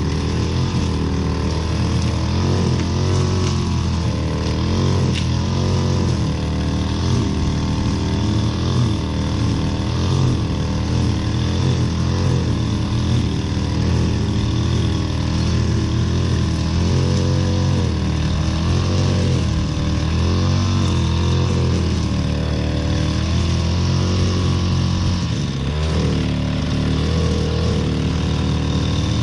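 Petrol string trimmer running steadily, its engine pitch wavering up and down again and again as it cuts through long, overgrown grass.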